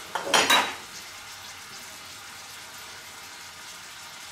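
Bacon with cauliflower and chestnuts frying in a pan, a steady low sizzle throughout. About half a second in, a brief clatter of china plates and a fork on the counter.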